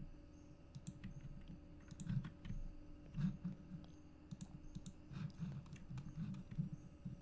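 Faint, irregular computer keyboard key presses and mouse clicks.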